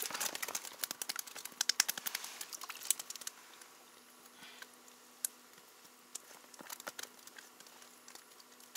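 Small clicks and crackles from hands handling a fishing line and rig: a rapid run for about three seconds, then scattered single clicks, over a faint steady hum.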